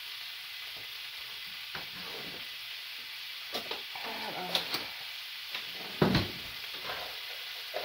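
Sausages and onions sizzling steadily in frying pans, with a few short knocks, the loudest about six seconds in.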